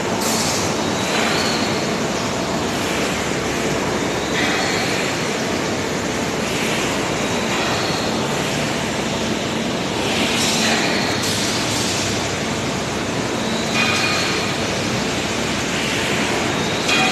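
Steady industrial machinery din in an aluminium ingot plant. Short high metallic squeals come every few seconds, with brief hissing bursts near the start, about ten seconds in and at the end.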